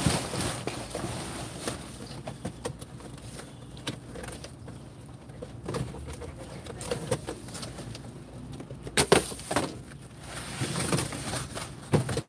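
Cardboard boxes and plastic bags being shifted and rustled while someone rummages through a dumpster, with scattered knocks of boxes and a louder knock about nine seconds in and another near the end.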